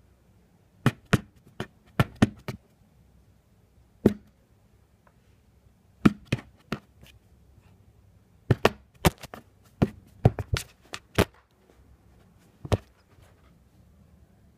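A cat's paws slapping and batting at a hard tabletop as it pounces on a laser-pointer dot: sharp taps in quick irregular clusters, about twenty in all, with pauses between the flurries.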